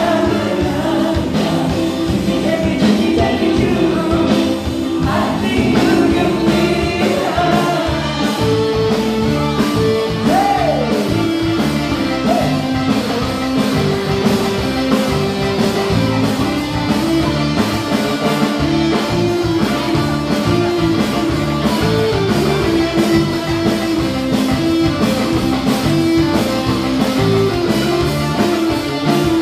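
Several singers singing together into microphones over amplified band music with a steady beat, played loud through PA loudspeakers.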